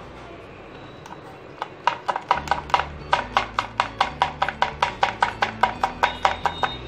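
Knife chopping green chillies on a cutting board in quick, even strokes, about five a second, starting about two seconds in, over faint background music.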